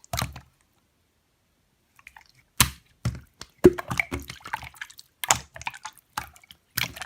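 Slime being squeezed and pressed by hand, giving irregular wet clicking pops and squishes. One short squish at the start, silence for about two seconds, then dense bursts of pops.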